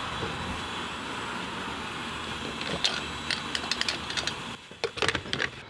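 Gasoline being pumped through a fuel nozzle into a car's tank: a steady rushing hiss with sharp clicks over its last couple of seconds. The flow stops about four and a half seconds in, and a few more clicks follow.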